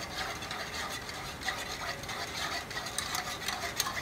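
Wire balloon whisk beaten round a pot of hot milk-and-flour pudding, a busy run of small scrapes and clicks as the wires hit the pot. The pudding is whisked nonstop as it heats so it thickens without forming lumps.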